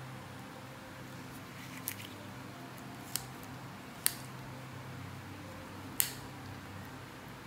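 Toenail nippers snipping through thick, hardened overgrown toenail: four sharp snaps, about two, three, four and six seconds in, the last two loudest.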